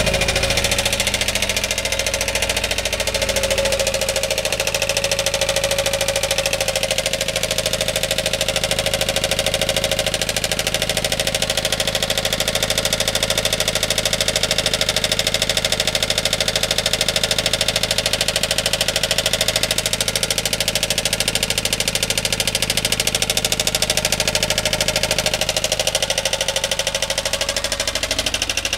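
Subaru Sambar van's engine running steadily with a fast, even ticking knock riding on it: the severe abnormal noise the van was brought in to be checked for.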